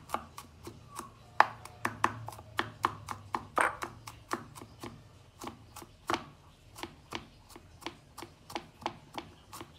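Kitchen knife mincing garlic on a round wooden chopping board: quick, repeated chops at about three to four a second, some harder than others.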